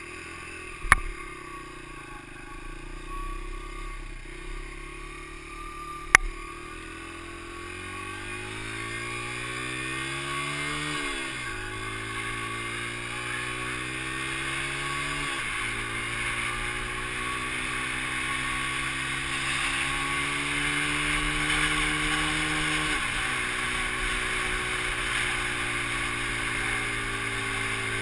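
Dirt bike engine accelerating hard through the gears while towing a longboarder. Its pitch climbs and drops sharply at three upshifts over a building rush of road and wind noise, with two sharp knocks in the first few seconds.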